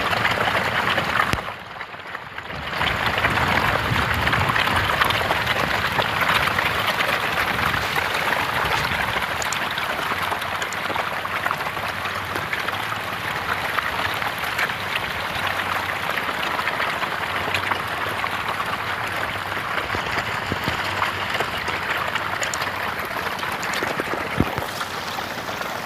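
Hundreds of farmed catfish thrashing and splashing at the water's surface in a feeding frenzy. The result is a dense, steady, rain-like churning of water, with a brief drop in level about two seconds in.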